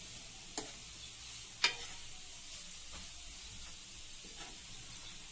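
Grated carrots frying in ghee on low flame in a nonstick pan, a steady sizzling hiss, while a steel ladle stirs them. A few sharp clicks of the ladle against the pan stand out, the loudest a little under two seconds in.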